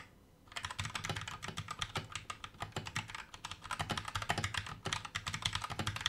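Fast typing on an FL Esports 68-key mechanical keyboard with Kailh Box Red linear switches and PBT keycaps: a rapid, continuous clatter of keystrokes that starts about half a second in.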